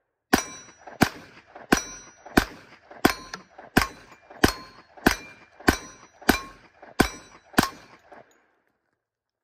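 Springfield XDM OSP pistol in 10mm Auto fired in a steady string: twelve shots about one and a half a second, stopping about eight seconds in. Each shot is followed by a short metallic ring.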